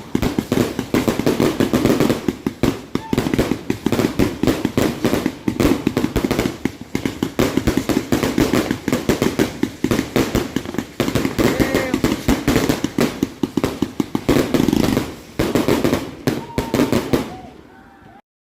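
Fireworks going off in a rapid, continuous string of sharp bangs and crackles, several a second. They thin out near the end and then stop abruptly.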